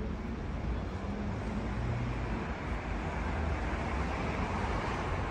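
Steady city road-traffic noise, a low rumble of passing vehicles that grows a little louder about a second in.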